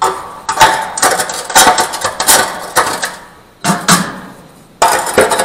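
Repeated metallic knocks and clatter in bursts with short pauses, as the cleanout opening of a Harvia sauna stove is closed back up.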